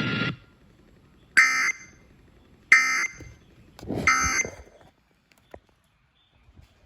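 Three short, buzzy digital data bursts about 1.3 seconds apart: the Emergency Alert System end-of-message (EOM) tones sent by NOAA Weather Radio, signalling that the severe thunderstorm watch broadcast has ended.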